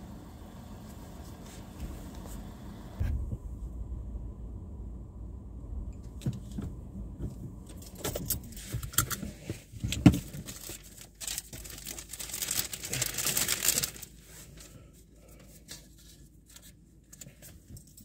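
Handling noises inside a waiting car: a low steady hum at first, then scattered clicks and knocks with one sharp knock about ten seconds in, and a stretch of rustling a few seconds later.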